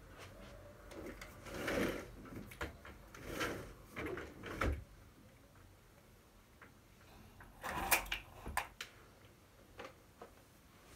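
Handling noise: rustling with light knocks and clicks in a few short bursts as a plastic gift bag is picked up and handled. The sharpest knock comes about eight seconds in.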